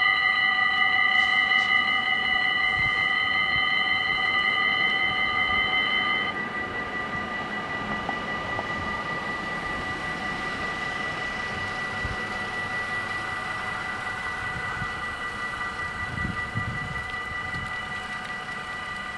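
Electronic warning bells of a Dutch level crossing ringing together in a steady ring of several pitches while the barriers rise. About six seconds in the louder bells stop, leaving a fainter ring, and cars drive across the crossing.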